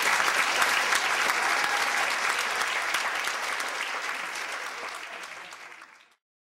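Audience applauding, the clapping fading gradually and then cutting off abruptly near the end.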